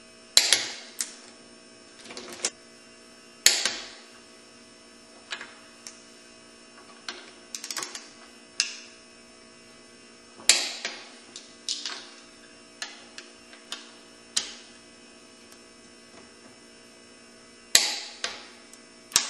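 Torque wrench tightening engine cylinder bolts in small steps toward 22 foot-pounds: irregular sharp metallic clicks and ratchet ticks, a handful of louder clicks ringing briefly, over a steady electrical hum.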